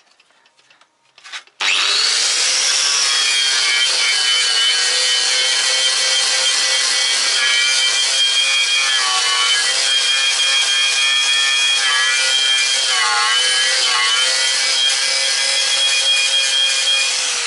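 Angle grinder starting up about a second and a half in and then running steadily, grinding the black undercoating off a frame SUV's body panel down to bare metal. Its pitch sags briefly a few times as the disc bears down on the metal.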